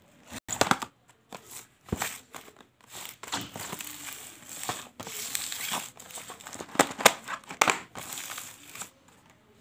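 Small cardboard snack boxes being handled: sliding, rubbing and tapping against one another and on a table top, an irregular run of scratchy rustles and sharp clicks that dies away near the end.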